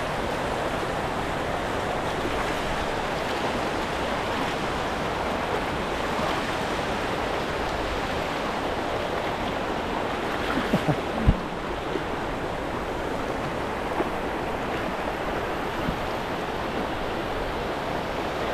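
Steady rush of river water pouring over a small waterfall, with a few brief knocks a little past the middle.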